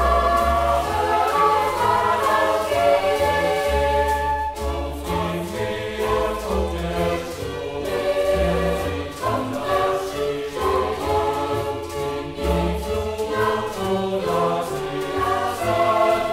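Youth chamber choir singing a German sacred song in several voice parts, over a low bass line that moves in steps.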